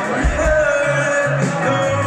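A live indie rock band playing electric guitars, bass guitar and drums, with a male voice singing.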